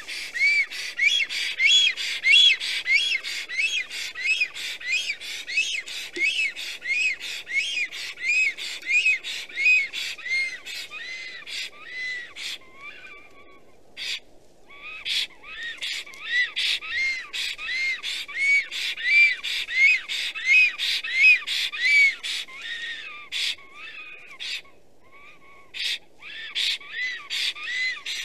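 Black stork giving its wheezy, whistled display call: a long series of rising-and-falling notes, about two or three a second, with two short breaks partway through.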